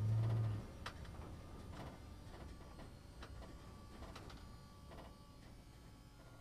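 A heavy cargo truck passing close: its low engine drone is loudest for the first half-second, then fades as it drives away. A few sharp clicks come through the fading rumble.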